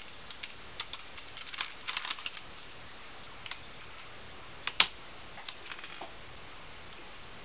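Plastic keys of an old, unplugged computer keyboard clacking irregularly as a crimson-bellied conure's beak and a person's fingers work at them. There is a cluster of clicks about two seconds in and one sharp, loud clack near the middle, and the clicks stop after about six seconds.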